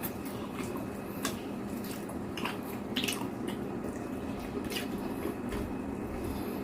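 Wet chewing and mouth clicks from someone eating fried eggplant with egg, a scatter of short smacking sounds over a steady low hum.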